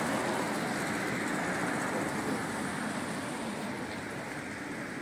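Steady street traffic noise, a continuous rush of passing vehicles, slowly getting quieter.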